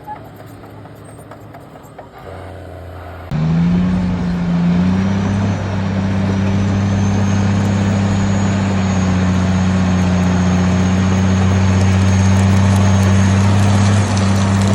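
Heavy diesel engine that comes up abruptly about three seconds in, rises briefly in pitch and then runs at a high, steady speed with a faint high whine above it.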